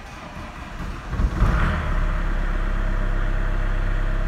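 Opel Vectra B's X20DTH 2.0 four-cylinder turbodiesel being started: the starter cranks it for about a second, it catches about a second and a half in, and it then settles into a steady idle near 1000 rpm.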